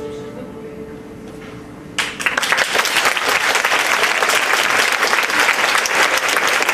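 The last held notes of the accompaniment fade, then about two seconds in an audience breaks into applause that carries on steadily.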